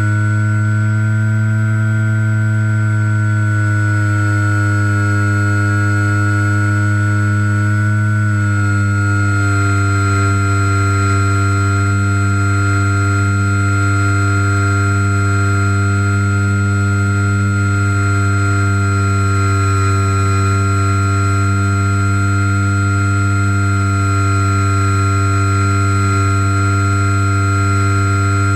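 Electric motor and propeller of a HobbyZone Super Cub RC plane heard close up from an onboard camera: a loud, steady whine that dips slightly in pitch about eight seconds in, then holds.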